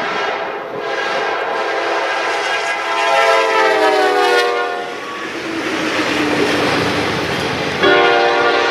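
Norfolk Southern B32-8 diesel locomotive passing at close range, its multi-chime air horn blowing for a road crossing, with wheels clattering over the rails. The horn chord drops in pitch as the locomotive goes by about four seconds in, and a fresh horn blast starts sharply near the end.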